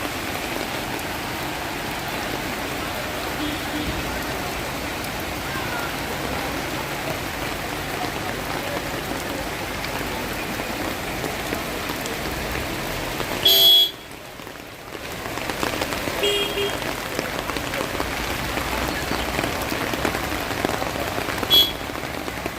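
Steady rain falling on surfaces, a dense even hiss, with a short horn toot about halfway through, after which the hiss briefly drops away for about a second.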